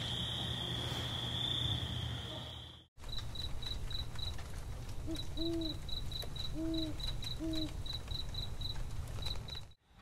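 A steady, high-pitched evening insect drone fades out about three seconds in. Crickets then chirp in a quick, even pulse while an owl hoots three times, each hoot a short arching note, before the sound cuts off just before the end.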